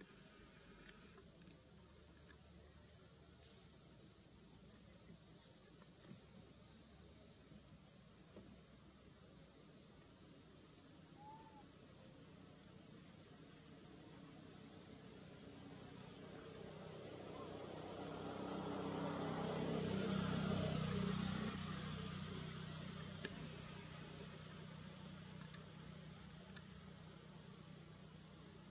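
Steady high-pitched drone of an insect chorus. A low drone swells in the second half and fades away.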